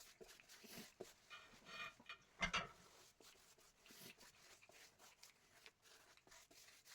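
Faint brushing and rubbing as bead grease is brushed onto a tire's bead, with a brief louder scrape about two and a half seconds in.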